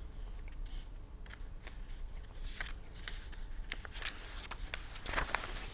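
Faint handling noise: scattered light rustles and clicks over a low steady hum, with a few sharper clicks near the end.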